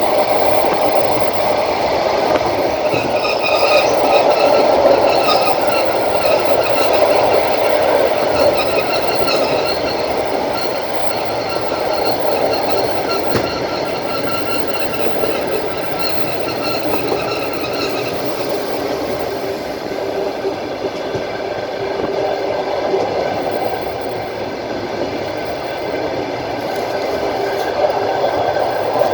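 Passenger train running along the track: the steady rumble and rattle of its wheels on the rails. Thin high ringing tones sound over it from about three seconds in until a little past the middle.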